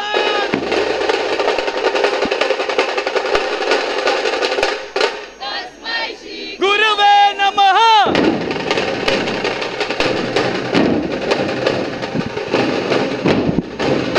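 A troupe of dhol drums playing a fast, dense rhythm with sharp, rapid stick strokes. The drumming thins out about five seconds in, a loud shout rises and falls around seven seconds, and the full drumming comes back in about eight seconds in.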